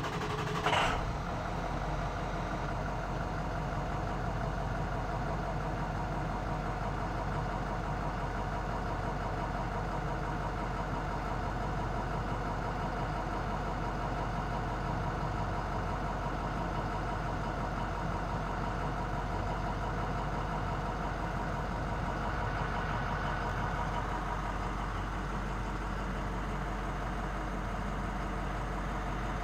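International MXT's VT365 6.0-litre turbodiesel V8 firing up about a second in, with a brief rise in level, then idling steadily, heard from inside the cab.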